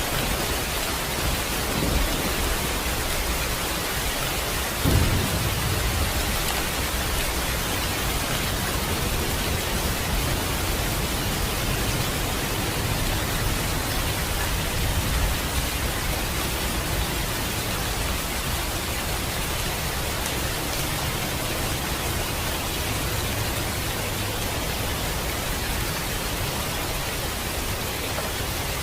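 Steady rain falling, an even hiss with no let-up, with a short low boom about five seconds in that fades within a second.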